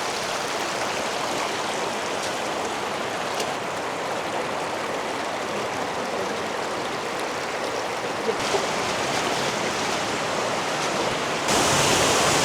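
Kanarra Creek's water rushing steadily through the slot canyon. It turns suddenly louder and brighter near the end.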